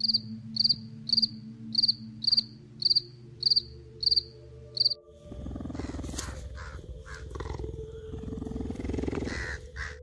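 A grasshopper stridulating: nine short, high chirps, about two a second, over a low hum. About five seconds in, a cheetah's low, rough rumbling takes over.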